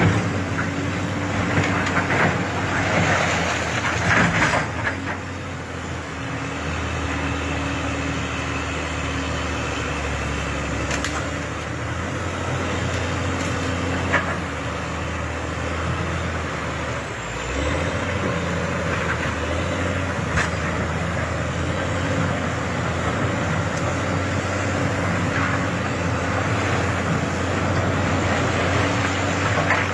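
Heavy diesel machinery engine running steadily under a layer of mechanical noise, with a brief shift in engine pitch about halfway through and a few louder swells of clatter near the start and end.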